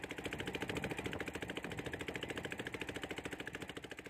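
Boat engine running with a fast, even chugging pulse that slowly grows fainter toward the end.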